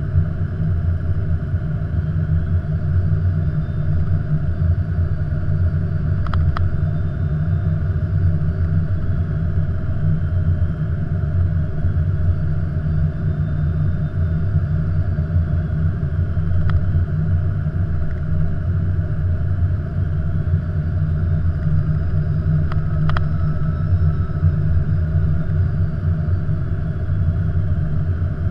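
Steady low rumble of airflow and engines inside an Airbus A330-200's cockpit on final approach, with a couple of faint clicks.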